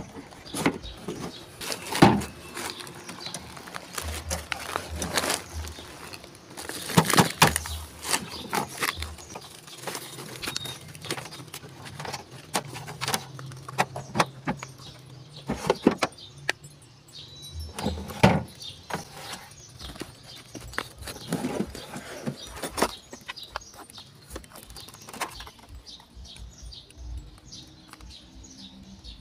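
Plastic casing of a dusty Panworld PW-868 evaporative air cooler being handled: irregular clicks, knocks and scrapes as its water tank and panels are moved, with a few louder knocks and a quieter stretch near the end.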